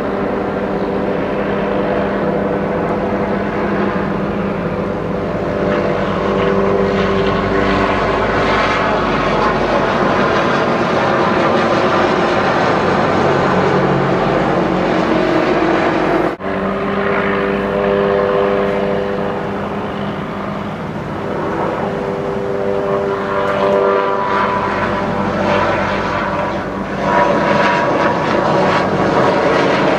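Low-flying military helicopters overhead: a loud, continuous engine and rotor drone with a steady hum that swells and fades as the aircraft pass. It cuts out for an instant about halfway through.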